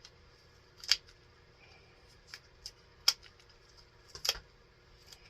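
Packaging being worked open by hand: five or six short, sharp clicks and crinkles spaced about a second apart, with quiet between them.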